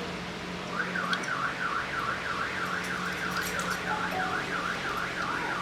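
An electronic siren warbling rapidly up and down, about three times a second, starting about a second in, over a steady low hum.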